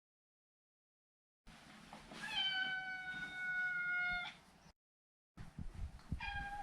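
Maine Coon cat meowing. After a second and a half of dead silence comes one long, drawn-out meow of about two seconds that falls slightly in pitch. A second, shorter meow begins near the end.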